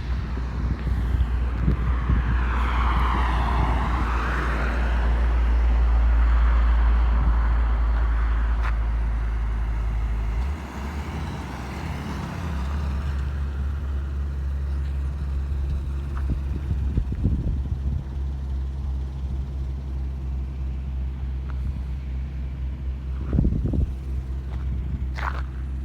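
Road traffic on a highway: a vehicle passes close by about three to six seconds in, then a steady low rumble of traffic continues.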